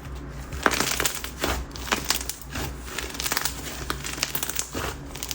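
White glue bingsu slime with clay mixed in being squeezed and worked by hand, giving many small irregular crackles and clicks from the bingsu beads.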